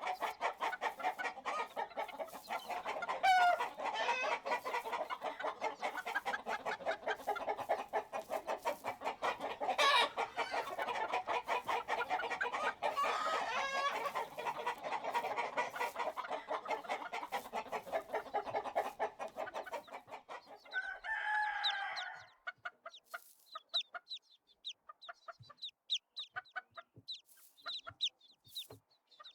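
A flock of chickens clucking densely, with a rooster crowing a few times. About three quarters of the way through, the clucking gives way to sparse, single short calls.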